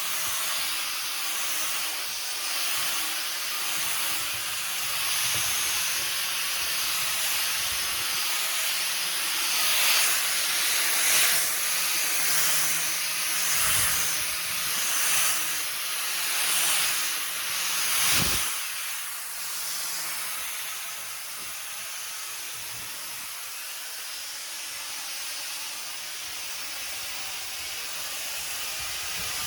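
Electric orbital sander running on a wooden table top: a steady hiss of sandpaper on wood over a faint motor hum. It swells in half a dozen louder surges through the middle, then eases to a lower, even level.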